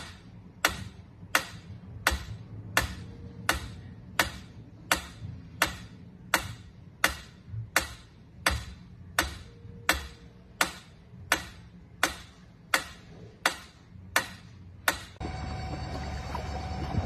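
Mechanical pendulum metronome ticking steadily, a little faster than once a second, each tick a sharp click.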